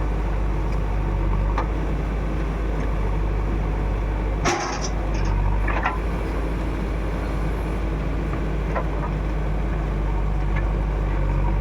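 Diesel engine of a JCB backhoe loader running steadily, with a sharp knock about four and a half seconds in and another about six seconds in.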